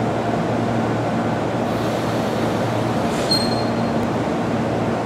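Stationary Shizuoka Railway 1000 series electric train humming steadily as its on-board equipment runs, with one short high beep about three seconds in.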